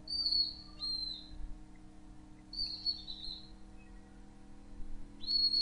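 A small bird chirping: a few short, high whistled notes, some dipping slightly in pitch, spaced a second or more apart, over a steady low hum.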